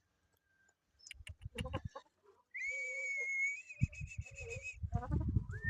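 A parrot whistles one steady note, held for about two seconds about halfway through, with a shorter rising whistle near the end. Knocks and rustling are heard in the second half.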